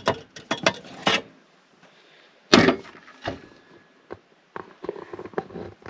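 Clicks and clatter of a Travel Buddy 12-volt oven being opened and its metal baking tray pulled out, with one sharp knock about two and a half seconds in.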